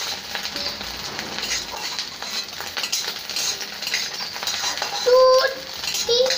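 Boiled eggs sizzling in hot oil in a kadai, with a metal utensil scraping and clinking against the pan as they are lifted out. A short high-pitched sound about five seconds in is the loudest moment.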